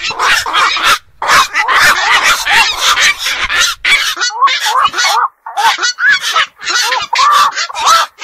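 Black-crowned night herons calling: a dense run of short calls, several a second and overlapping one another, with brief breaks about a second in and again around five seconds.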